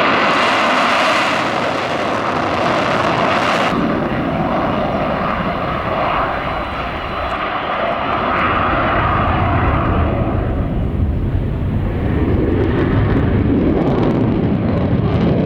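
F-16 fighter's afterburning turbofan at full afterburner for takeoff and climb: loud, steady jet noise that turns into a deeper rumble about ten seconds in.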